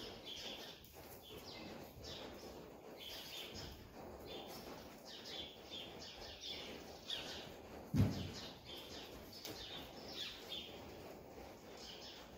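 Small birds chirping over and over in short, high, falling notes, with one dull thump about eight seconds in.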